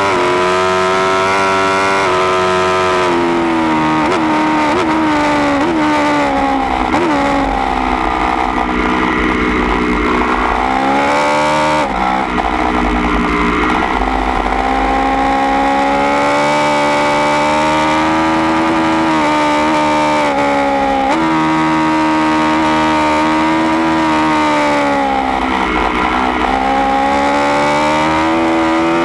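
2016 Aprilia Tuono V4 1100 Factory's V4 engine through an Austin Racing GP1R baffled exhaust, heard from on board at track speed. The revs rise and fall with the corners: twice the pitch drops in steps with short blips as it goes down the gears, then climbs again under hard acceleration, over a low rumble.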